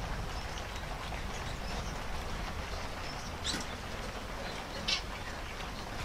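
Cage birds calling over a steady background hum: a few short, high chirps, the clearest about three and a half and five seconds in.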